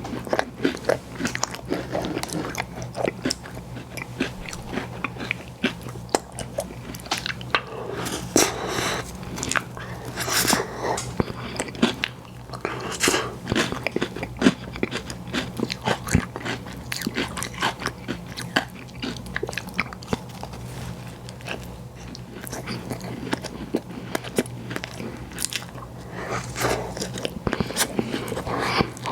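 Close-miked eating of ice cream and cookie desserts: big bites and wet chewing with irregular crunches and crackles, over a steady low hum.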